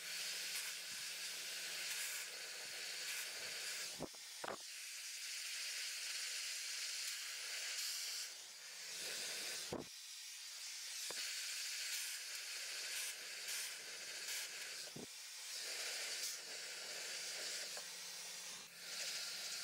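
Hand-held hair dryer with a nozzle attachment blowing, a steady airy hiss over a faint low hum, swelling and easing as it is moved over a round brush in the hair. A few faint clicks from the brush and dryer being handled.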